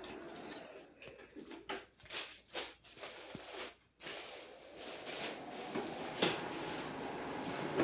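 Faint clicks, taps and rustling of the animatronic's metal frame parts being handled and fitted together, with a few sharper knocks; the sound cuts out for a moment about four seconds in.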